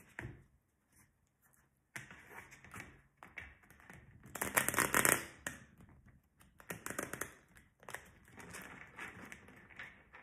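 A deck of cards being shuffled by hand on a table: a crisp rustling and flicking of cards that starts about two seconds in and comes in bouts, loudest a little past the middle.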